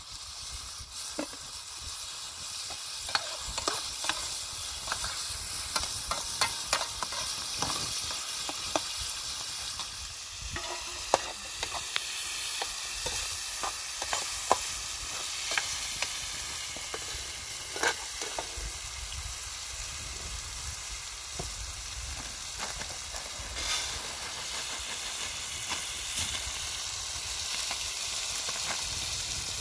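Food sizzling as it fries in a pan, a steady hiss broken by irregular sharp clicks and taps from stirring.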